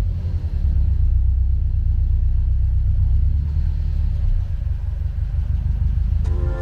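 Car engine running with a steady, deep low rumble. Music comes in near the end.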